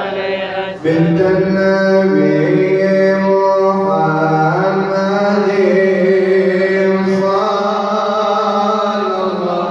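Omani mālid recitation: young men's voices chanting unaccompanied, holding long notes that step and slide between pitches.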